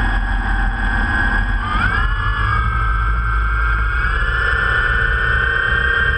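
DJI Phantom quadcopter's brushless motors and propellers running on the ground before takeoff: a steady multi-tone whine that rises briefly about two seconds in, with prop wash buffeting the drone-mounted GoPro's microphone into a low rumble.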